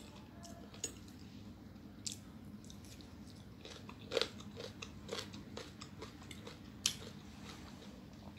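Close-miked chewing of fork-fed chow mein noodles: soft wet mouth clicks and smacks, bunched around the middle, with a few sharper clicks, over a faint steady hum.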